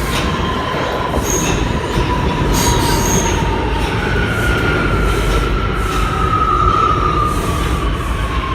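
New York City Subway R179 train running into a station, a loud rumble under squealing wheels. One squeal tone gives way about four seconds in to a higher one that slowly falls in pitch, with a few short shrill chirps near the start.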